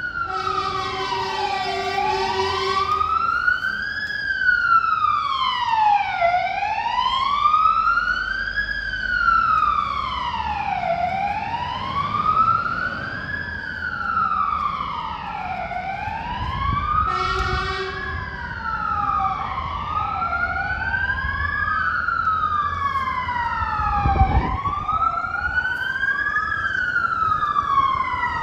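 Fire engine sirens approaching on an emergency run, a slow wail rising and falling about every four and a half seconds, with a second siren wailing out of step with the first in the latter part. A truck horn blasts for a couple of seconds at the start and briefly again about 17 seconds in, over low engine rumble.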